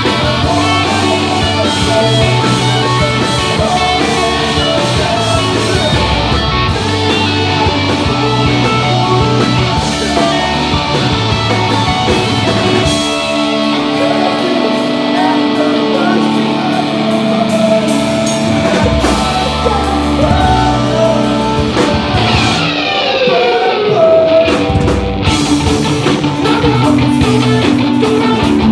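Pop punk band playing live at full volume: electric guitars, drum kit and singing.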